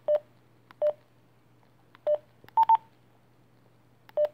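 Keypad beeps from a Radioddity GD-77 DMR handheld radio as its menu buttons are pressed: six short beeps spaced unevenly, two of them higher-pitched and in quick succession a little past the middle.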